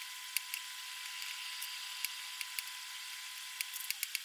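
Lotus root slices frying in oil in a skillet: a steady sizzle with scattered sharp crackling pops.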